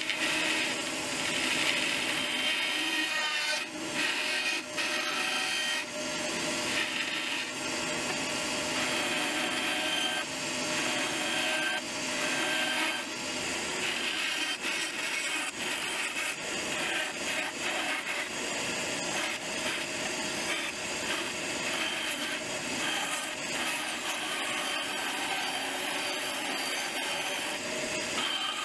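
Bandsaw blade cutting curves in a maple board, running steadily through the wood, with a few short dips in level about four to six seconds in.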